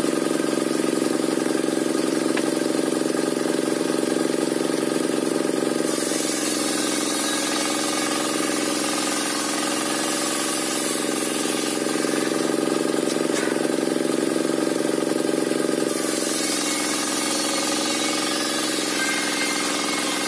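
Engine-driven circular sawmill (serkel) running steadily, its blade ripping a waru log, with a steady engine drone under it. A high hiss grows stronger about six seconds in and eases around sixteen seconds.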